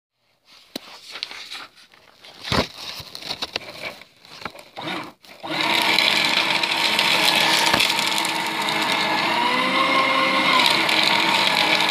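Irregular rustling and clicks of a sheet of paper being handled. About halfway in, a Fellowes P-35C paper shredder's motor starts and runs steadily, cutting the sheet as it is drawn into the slot.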